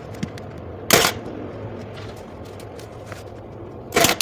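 Cordless 23-gauge pin nailer firing twice, two sharp snaps about a second in and near the end, over a steady low hum.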